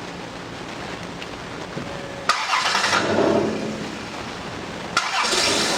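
A 2002 Dodge Caravan engine is cranked by its starter and catches quickly about two seconds in, then runs. It is a quick hot restart while the fuel pressure is still up, on a van whose hard starting the mechanic blames on fuel pressure leaking down, probably back past the fuel pump check valve.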